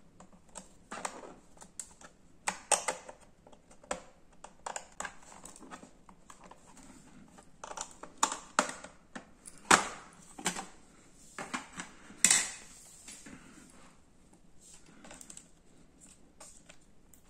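Irregular clicks, taps and scrapes of a small screwdriver and fingers on the plastic underside of a laptop, unscrewing and prying off the access cover, with a couple of louder knocks about ten and twelve seconds in.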